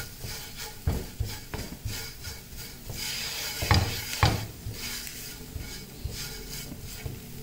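Silicone spatula with a wooden handle stirring and scraping onions and spices across a non-stick frying pan: a string of short, irregular scraping strokes over a faint sizzle as the spices are lightly roasted in oil.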